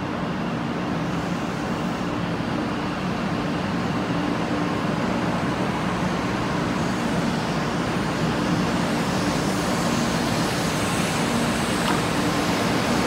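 500 series Shinkansen train pulling out of a station platform and gathering speed. A steady low hum sits under a rushing noise that grows louder over the second half.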